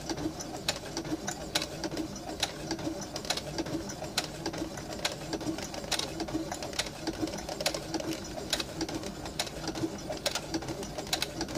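Computerised home sewing machine stitching slowly through several layers of leather, with a sharp click about once a second as each stitch goes through over a steady low pulsing hum.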